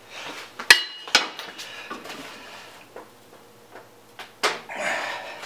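A few sharp metal clanks and knocks from handling tools and clamps on a clamped steel frame, the loudest about a second in ringing briefly, with quieter clicks later.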